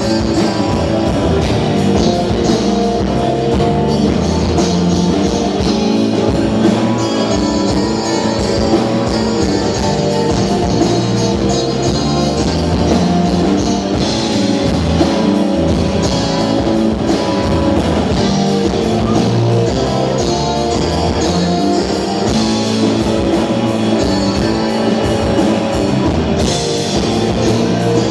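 Live rock band playing, with electric guitar and drum kit, at a steady loud level.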